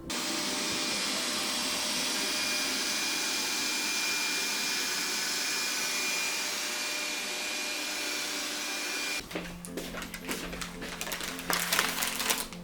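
An electric appliance motor with rushing air runs steadily for about nine seconds, with a faint thin whine, then cuts off suddenly. Clicks and rattles of handling follow over soft music.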